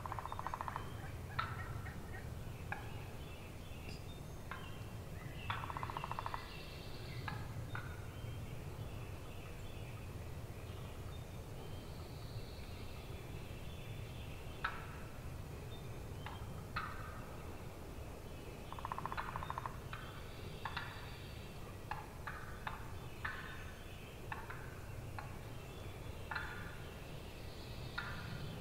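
Wild turkeys gobbling: three rattling gobbles, one at the start, one about six seconds in and one about nineteen seconds in. Scattered short calls come between them.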